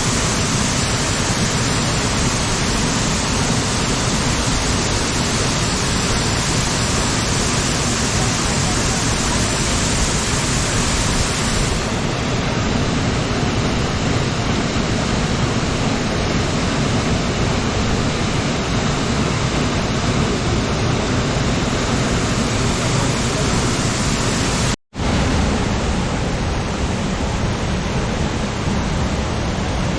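Waterfall cascades, a loud steady rush of falling water. The sound cuts out for a moment about 25 seconds in, then carries on.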